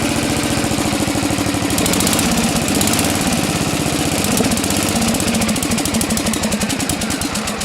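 Engine idling just after being got running again, its firing heard as a rapid, even pulsing.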